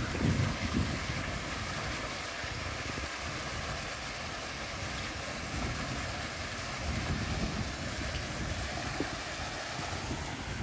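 Water spouting through a gap in a wooden lock gate and splashing into the lock chamber below, a steady rushing, with wind buffeting the microphone.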